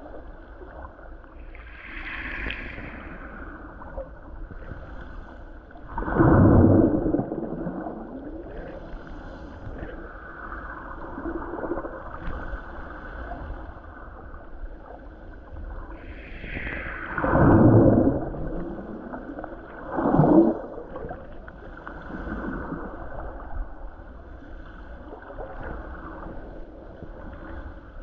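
Water gong: a gong's ring bending down in pitch as it is lowered into water, giving long whale-like swoops, three loud ones about 6, 17 and 20 seconds in, over a steady watery gurgle.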